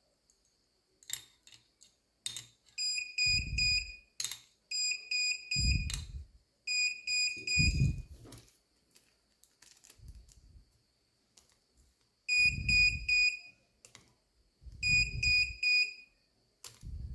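Arduino-driven buzzer sounding short bursts of rapid high beeps, four or five beeps to a burst, six bursts in all: its signal that the RFID reader has detected a card. A low rumble comes with each burst, and a few sharp clicks come before the first.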